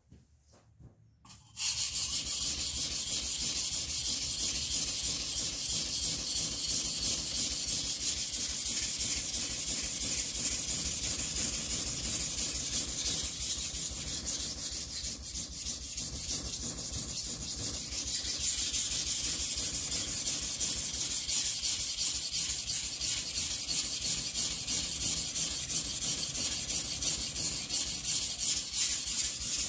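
Steel kitchen knife blade, an inexpensive Daiso knife, being ground on a whetstone in continuous back-and-forth scraping strokes, starting about a second and a half in.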